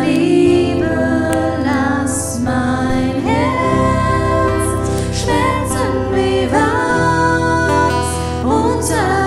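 A slow pop ballad performed by a small band: a woman singing over strummed acoustic guitar and sustained chords.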